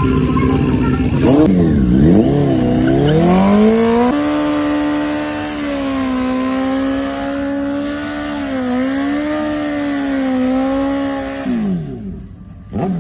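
Pickup truck engine revved hard: after a couple of quick swoops in pitch it is held at high revs for about seven seconds with small dips, then dropped back down near the end.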